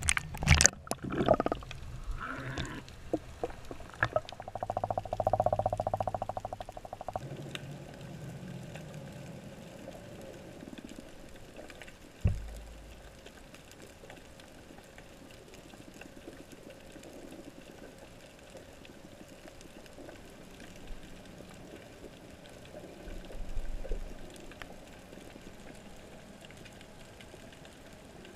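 Knocks and churning water in the first seconds, then muffled underwater sound picked up through a camera housing: a faint steady hiss with a few low thumps and a bubbly rumble.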